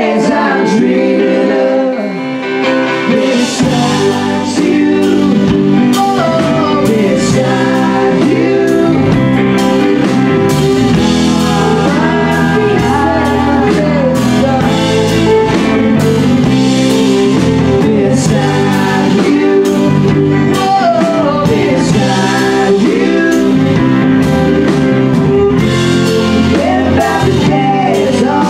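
Live band playing a song: a fiddle carries gliding melodic lines over electric and acoustic guitar, keyboard and drums. The low end fills in a few seconds in and the band plays on steadily.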